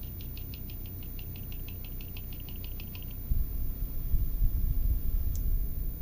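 A plastic PC case fan, its bearing freshly greased, handled and turned in the hand: a quick run of light ticks, about seven a second, for about three seconds, then a low rustle of handling with one sharp click near the end.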